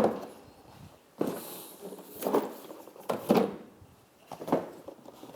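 A sharp knock, then a few irregular clunks and rattles about a second apart, as parts are handled during assembly.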